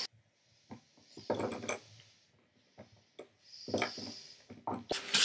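Scattered knocks, clinks and short rustles as a hydraulic hand pump and parts are handled on a steel workbench.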